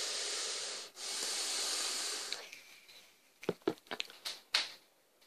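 A draw on a vape and the exhale: two long breathy hisses, about a second and then about a second and a half, the second fading out. A few faint short clicks follow near the end.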